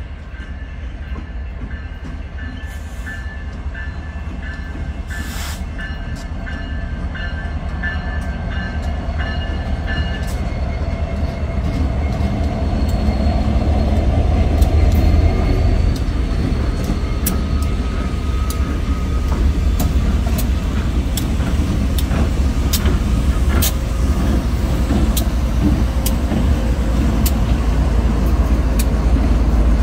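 Diesel freight locomotives passing close by, their engines a steady low rumble that grows louder as they draw near, with sharp wheel clicks over the rail joints in the second half. A grade-crossing bell rings about twice a second through the first ten seconds, then stops.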